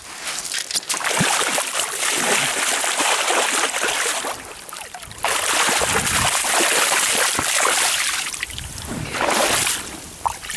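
Hooked salmon thrashing and splashing in shallow water as it is drawn to the bank, in three bouts of splashing, the last one short.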